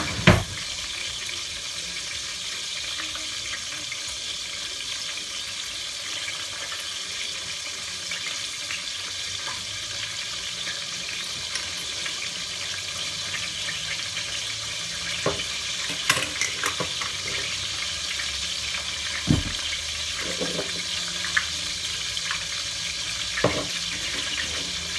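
Veal sizzling steadily in oil in a stainless steel pot. A sharp knock just after the start as a wooden drawer is pushed shut, then scattered light clicks of a metal spoon against a glass jar of capers in the second half.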